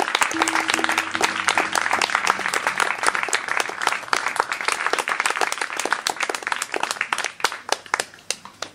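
Audience applauding, the claps thinning out and fading away near the end.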